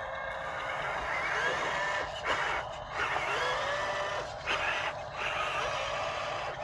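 Small electric motors of RC construction models whining, their pitch rising and falling as they speed up and slow down, with a few short clicks.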